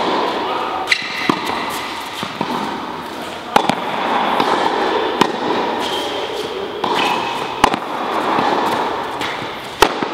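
Tennis rally on an indoor court: a tennis ball struck by rackets and bouncing, sharp pops a second or two apart over steady background noise.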